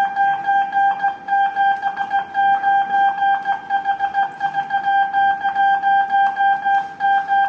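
Morse code tone keyed by hand: a single steady beep switched on and off in quick dots and dashes, sending numeric code groups.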